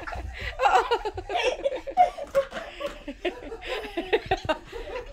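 People laughing in quick, short bursts, mixed with a little talk.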